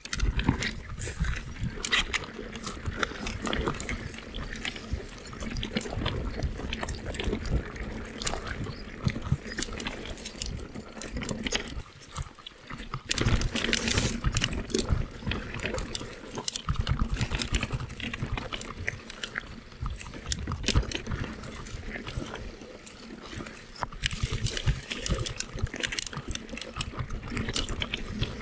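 Mountain bike descending a rough, rocky trail: a continuous irregular clatter of knocks and rattles from tyres, chain and frame over stones and drops, easing briefly about twelve seconds in.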